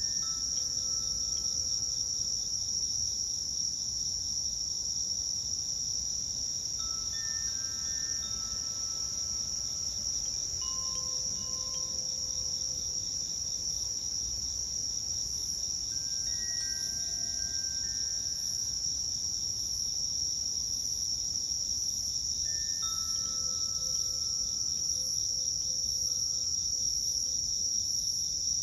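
Crickets chirping in a steady, dense high trill, the loudest sound throughout. Faint, soft chime notes from a Koshi Terra chime ring out in small clusters every several seconds and die away.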